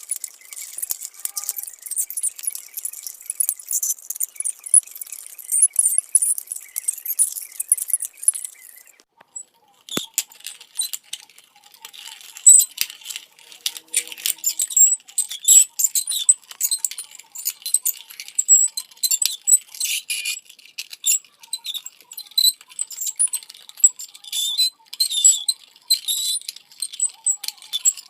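Rapid, high-pitched squeaking with many short overlapping chirps and clicks, broken off briefly about nine seconds in.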